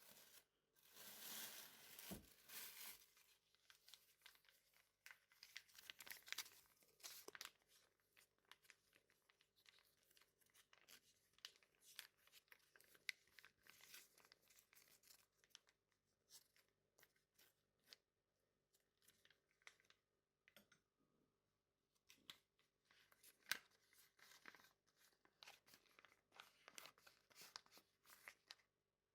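Faint rustling and crinkling, like paper or packaging being handled, broken by many small clicks and taps; a longer rustle comes about one to three seconds in.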